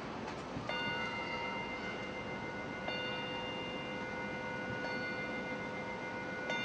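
Bowl-shaped meditation bell held on the palm and struck with a small striker four times, about every two seconds, each strike ringing on in long overlapping tones. It is the bell rung to begin the ceremony.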